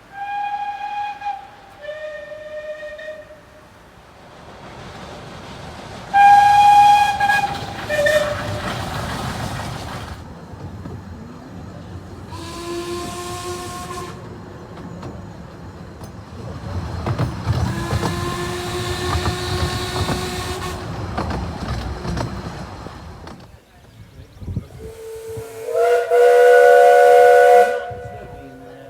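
Steam locomotive whistles sounding in a run of separate blasts. First come two pairs, each a short higher note followed by a lower one. Then deeper, fuller whistles follow: one of about two seconds, and one held about five seconds over steam hiss and the rumble of a moving train. Near the end comes a loud multi-note chime whistle.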